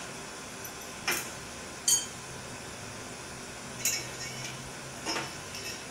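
Small steel bicycle bottom-bracket parts clinking against each other and the crank as they are fitted. There are four light metallic clicks, and the second rings briefly.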